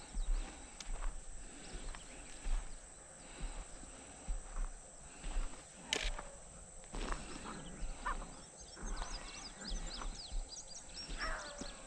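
A pack of rabbit-hunting beagles baying while running a rabbit, over footsteps crunching on a gravel track, with one sharp knock about halfway through.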